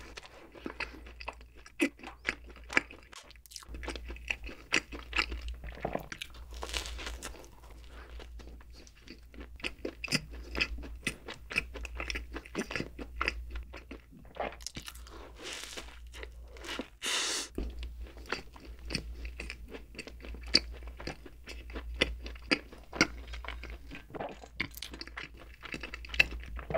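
Close-miked chewing and crunching of a crumbly streusel-topped bun: a steady run of small crackling, wet chewing clicks with a few sharper bites.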